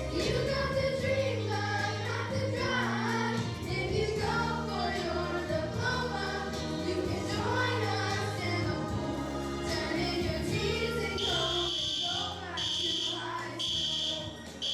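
Children's choir singing over music. About 11 seconds in, a fire alarm, set off by stage fog from a fog machine, starts sounding over the song in a high tone that pulses about once a second.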